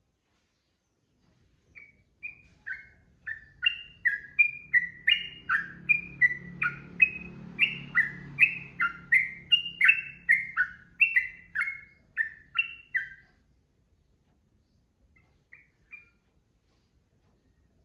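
Yellow-vented bulbul singing a long, rapid run of short bubbly chirps, about two notes a second. The run starts about two seconds in, grows louder and stops near thirteen seconds, with two faint notes later.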